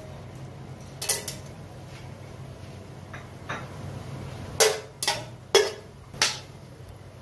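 Whole spices (cinnamon stick, cloves, cardamom) dropping into hot oil in an aluminium cooking pot: sharp clinks against the metal, one about a second in and four close together in the second half, over a steady low hum.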